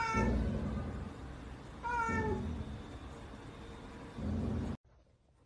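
Domestic cat meowing twice, two short calls falling in pitch about two seconds apart.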